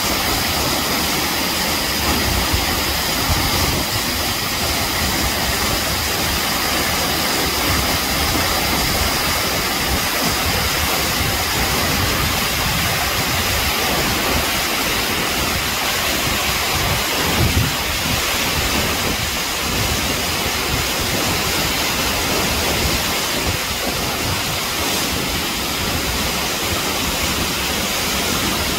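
The Acquafraggia waterfall pouring down a rock face into its plunge pool, filmed up close: a loud, steady rush of falling water.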